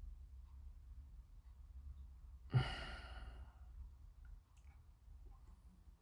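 A single heavy sigh, a breathy exhalation that starts with a soft thump on the microphone about halfway through, over a low steady hum.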